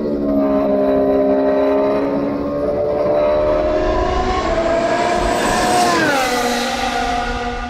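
Mercedes-AMG F1 W11's 1.6-litre turbocharged V6 hybrid engine running on track: a loud, steady engine note that climbs slowly in pitch, drops sharply about six seconds in, then holds a lower note.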